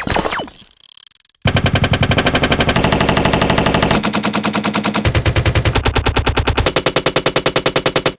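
Fully automatic gunfire: a string of rapid bursts, one weapon sound after another with a change in tone every second or so, cut off suddenly at the end. About the first second and a half holds the dying ring of earlier single shots.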